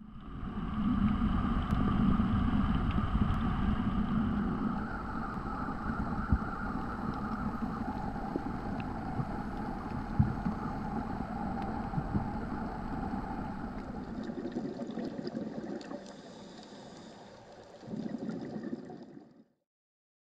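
Steady motor hum with rushing water noise, as picked up underwater, with a few scattered clicks. The sound thins out about fourteen seconds in, dips, swells briefly again, then cuts off shortly before the end.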